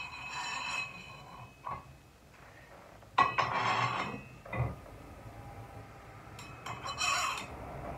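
Metal weight plates being slid onto a barbell to add 5 pounds per side, scraping and clanking, with the sharpest, loudest clank about three seconds in.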